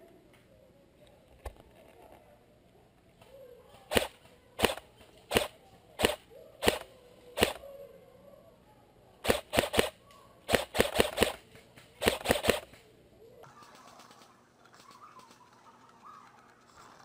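Airsoft gunfire: six sharp single shots about two-thirds of a second apart, then three quick groups of shots in rapid succession.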